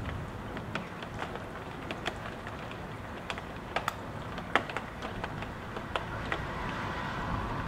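Rain heard from inside a house: a steady wash of rain noise with irregular sharp ticks of single drops striking nearby. The rush swells slightly near the end as the wind gusts.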